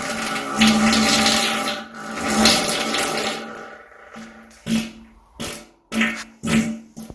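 A person farting: one long buzzing, sputtering fart of about three and a half seconds, then about five short puffs in quick succession.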